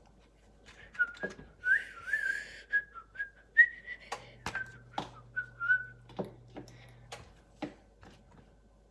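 A person whistling a short, wavering tune for about five seconds, with sharp clicks and knocks scattered through it.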